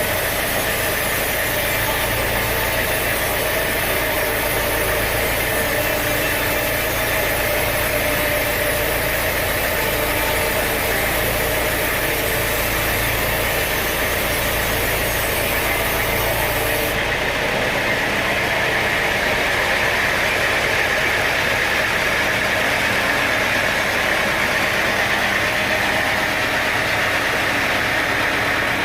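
Sawmill machinery running steadily with an engine-like idling drone, not cutting wood. About two-thirds of the way through, the sound changes abruptly and loses its hiss.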